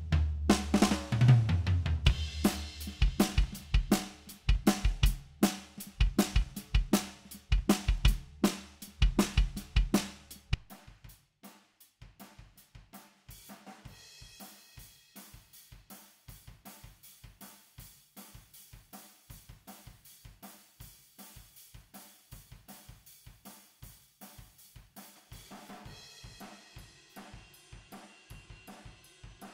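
Multitrack recording of an acoustic drum kit played back: kick, snare, toms and cymbals. It is loud and heavy for about the first ten seconds, then drops to a much quieter, steady pattern of about four hits a second with cymbals.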